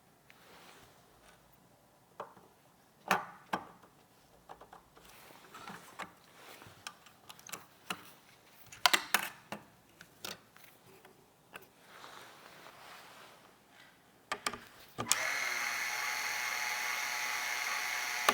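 Scattered clicks and knocks of hardware being handled, then a small electric screwdriver starting suddenly and whirring steadily for about three seconds near the end.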